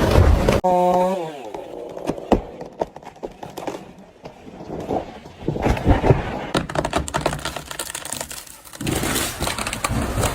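Two-stroke chainsaw running, then cut off about half a second in, its pitch falling as the engine winds down. Scattered knocks, cracks and crackles follow.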